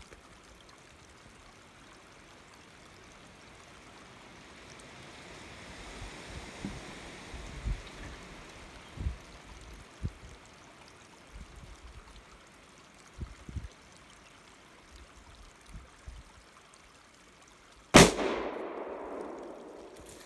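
A single gunshot, most likely a hunting rifle, comes near the end: one loud, sudden crack with an echo that dies away over about two seconds. Before it there is only a faint hiss and a few soft thumps from the camera being handled.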